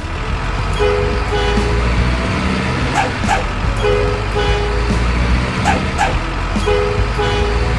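Heavy truck engine sound running steadily, with short two-note horn toots repeating about every three seconds, mixed with background music.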